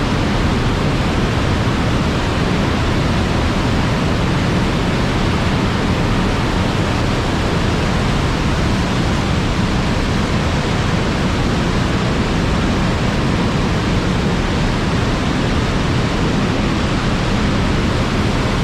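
Loud, steady roar of a high waterfall thundering down into a narrow rock canyon, echoing off the walls.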